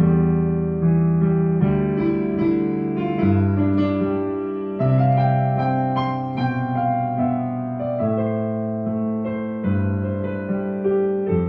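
Piano playing slow sustained chords, a new chord struck every second or two.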